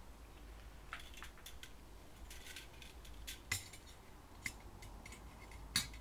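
Scattered light metallic clicks and clinks of iron wire and a bolt cutter being handled as a length of wire is cut from the spool. The sharpest clicks come about halfway through and again near the end.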